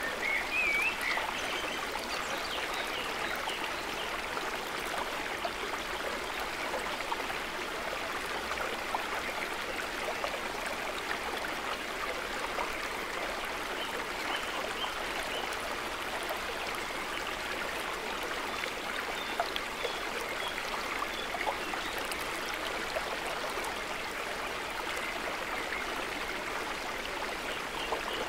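Shallow rocky woodland stream flowing steadily over stones, with a few short high chirps, the clearest about half a second in.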